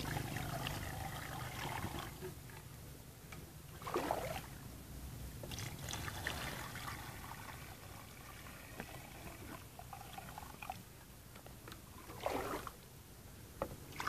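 Water poured from a plastic container into the open tank of a plastic knapsack sprayer, trickling and splashing as the tank fills. It is briefly louder twice: about four seconds in and near the end.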